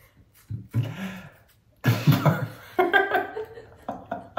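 A man laughing hard in several bursts, the later ones short and quickly repeated.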